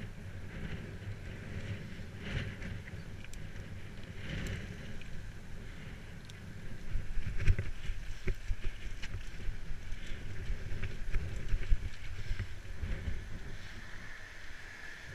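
Wind on a bike-mounted GoPro Hero 3 microphone and the rumble and rattle of a bicycle riding along a canal towpath. From about six and a half seconds in it gets louder and bumpier, with jolts, as the tyres run over brick paving.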